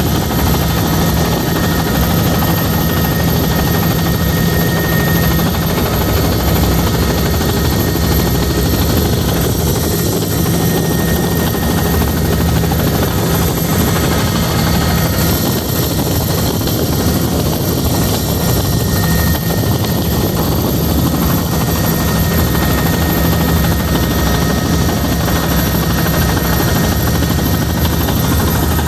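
Helicopter in level flight, heard from on board: a loud, steady drone of engine and rotor with a constant low hum.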